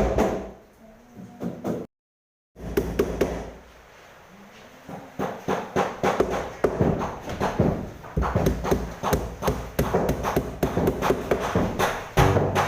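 Rapid tapping, a stream of short sharp strokes that thickens about halfway through, with a brief dead silence about two seconds in.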